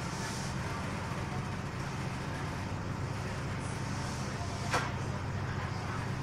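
First Fleet class ferry's engines running with a steady low drone, heard inside the passenger cabin. A single short sharp click sounds about three quarters of the way through.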